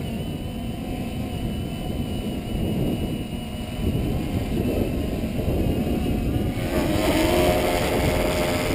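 Walkera Tali H500 hexacopter's electric motors whining in flight over a steady wind rumble on the microphone, growing louder as it comes down to land close by, then cutting off sharply at the end. The owner puts the odd motor sound down to a motor loose in the frame, from a weak joint between the upper and lower body shell at the arms.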